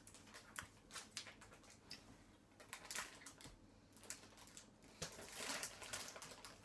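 Plastic sweet packet crinkling as it is handled: a string of faint crackles, thickening into a denser rustle about five seconds in.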